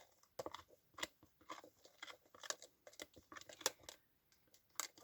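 Wet, shredded toilet paper and shampoo being stirred in a small container: faint, irregular soft clicks and scrapes, several a second, as the soggy paper clumps are worked.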